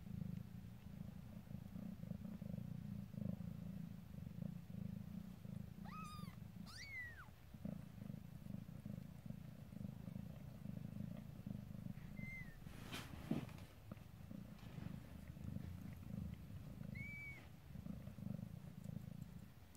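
Mother cat purring steadily while she is giving birth. Over it come four short, high squeaky mews from the newborn kitten: two close together about six seconds in, one near twelve seconds and one near seventeen. There is a single sharp click about thirteen seconds in.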